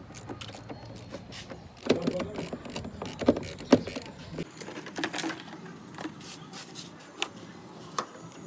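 Irregular metal clicks, clinks and knocks of a socket wrench and other hand tools against parts as components are refitted in a car's engine bay, with a cluster of sharper knocks between two and four seconds in.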